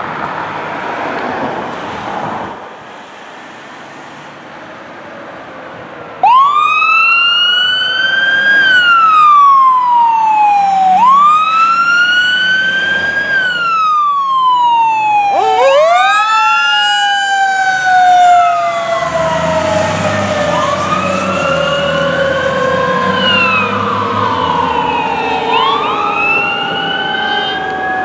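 Fire engine's sirens: quiet road and engine noise at first, then about six seconds in a siren starts suddenly, wailing up and down about every two and a half seconds. About halfway through, a Federal Q2B mechanical siren winds up steeply and then coasts down slowly in pitch, sounding together with the rising-and-falling wail.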